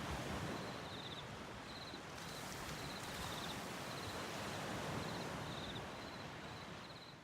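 Steady wash of waves on a beach, with an insect chirping in short, evenly repeated high trills over it; everything fades out near the end.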